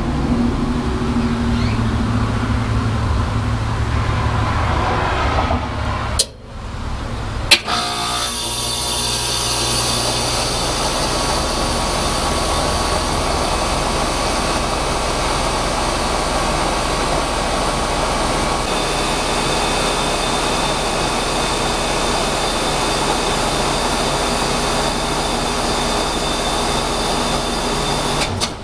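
Rheem heat pump outdoor unit running, a steady hum from the compressor with air noise from the outdoor fan. About six seconds in the sound dips and there is a sharp click, after which the unit runs on as an even, steady rush.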